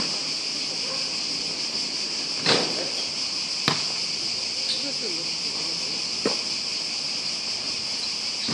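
Steady, high-pitched drone of insects in the surrounding trees, broken by about four sharp knocks of a basketball hitting the court, spaced one to two and a half seconds apart.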